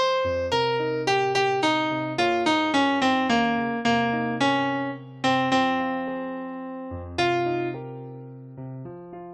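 Piano-voiced keyboard playing a melody of single struck notes over held low notes, each note fading after it is struck. The phrase slows partway through and ends on long notes left to ring out.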